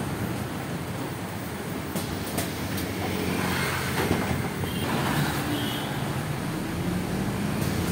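Steady rumble of a moving vehicle heard from inside it in city traffic, with an engine hum that comes up about three seconds in and a few sharp rattling clicks.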